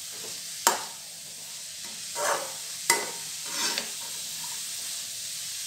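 Shredded cabbage and carrot sizzling in oil in a kadai with a steady hiss while a metal spatula stirs them, scraping through the vegetables twice. The spatula knocks sharply against the pan twice, about a second in and near three seconds in.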